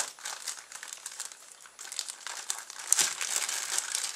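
Clear plastic bag of small plastic sample bottles crinkling as it is handled and a bottle is worked out of it, with a sharper, louder crackle about three seconds in.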